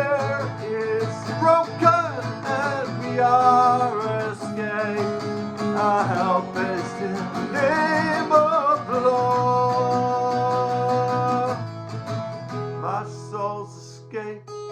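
Gospel worship song: a singing voice over guitar accompaniment, with the music growing quieter over the last few seconds.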